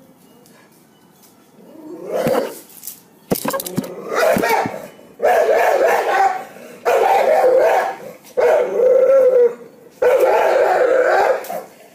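Dog barking in long, drawn-out barks, four in a row starting about five seconds in, after a shorter call and a few sharp clicks.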